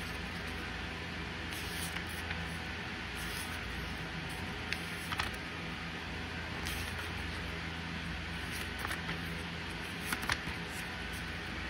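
Steady background hiss and low hum, with scattered light clicks and rustles from the paper pages of a car owner's manual being handled and turned.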